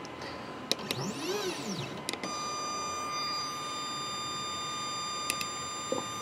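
CNC 3018 stepper motor jogged from the offline GRBL controller: a few sharp clicks, a whine that rises and falls over about a second, then a steady high whine for about four seconds that stops near the end.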